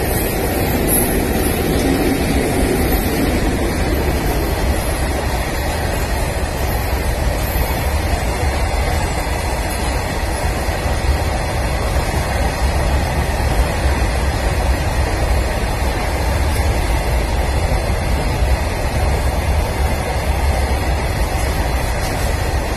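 Long, heavy coal freight train running through at speed: a steady rumble of wagons rolling over the rails, a little fuller in the first few seconds.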